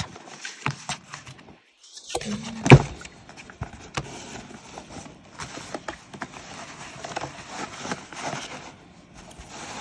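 Paper gift wrapping and a gift bag being handled: rustling with scattered light taps and clicks, and one sharp knock a little under three seconds in.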